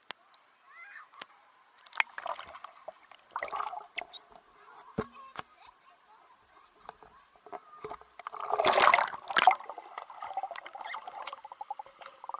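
Water splashing and sloshing in irregular bursts, loudest in a burst of splashing about nine seconds in.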